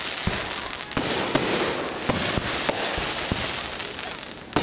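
A 1.3G fireworks cake firing: a continuous dense crackle from the falling stars, punctuated by repeated sharp booms about two or three a second. It thins out near the end, then one loud bang closes it.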